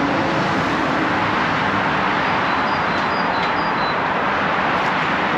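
Steady, even noise of road traffic, with no clear single vehicle standing out.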